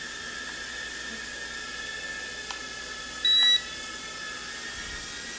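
JJRC H56 TaiChi mini quadcopter's small motors and propellers whining steadily as it hovers, with one short high electronic beep about three seconds in.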